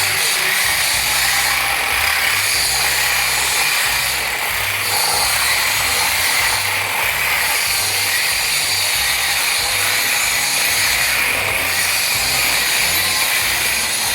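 Power tool running steadily while working metal on a car's exhaust, making a continuous loud, hissy grinding noise.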